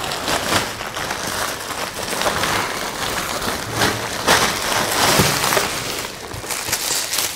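Thin plastic carrier bag rustling and crinkling loudly while boxes of fireworks are pulled out of it.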